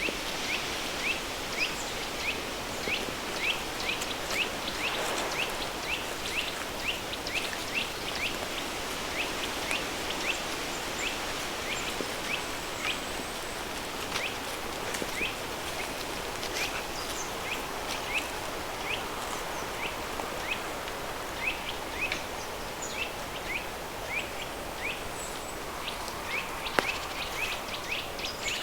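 River stream running, mixed with added pink noise into a steady, even hiss. Short high chirps repeat through it, about two a second, thinning out in the middle and growing busier again near the end.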